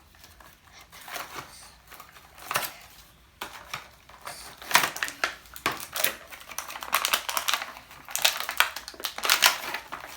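Plastic toy packaging being handled and opened by hand, crinkling and crackling in irregular bursts, loudest about five seconds in and again near the end.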